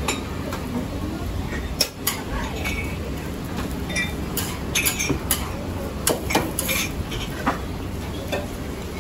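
Metal cooking utensils and pans clinking and clattering against a flat griddle, a dozen or so sharp clinks in loose clusters over a steady low hum.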